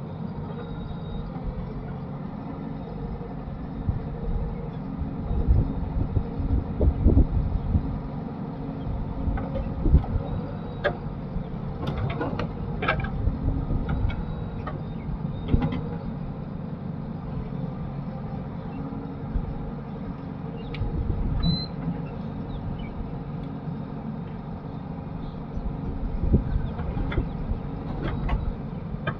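Heavy diesel machinery engine running steadily, with several louder surges as it works under load, and scattered sharp knocks and clanks in the middle.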